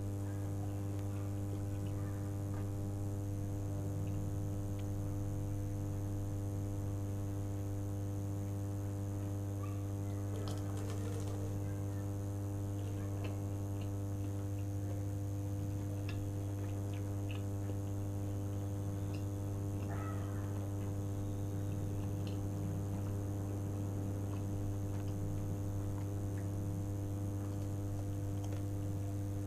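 A steady electrical hum with a string of even overtones runs throughout, the loudest sound. Over it come scattered quiet crunches and mouth clicks of a spring roll being bitten and chewed, thickest about ten to eleven seconds in and again around twenty seconds.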